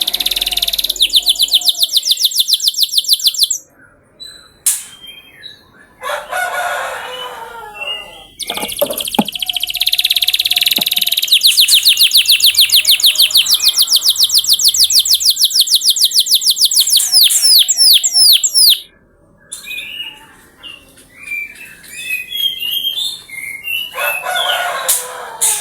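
Domestic canary singing: long, loud rapid trills of evenly repeated high notes, broken by short pauses and varied phrases, with a few quick falling sweeps near the end of the second long trill.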